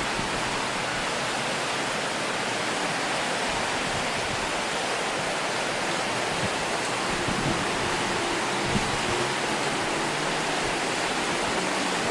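A mountain river rushing over its stony bed: a steady, unbroken hiss of flowing water.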